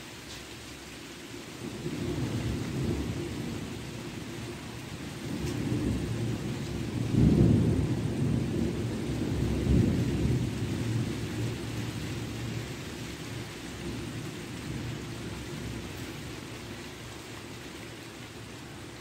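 Thunder rolling over a steady hiss of rain: a low rumble builds about two seconds in, peaks sharply around seven seconds in and again near ten, then slowly dies away.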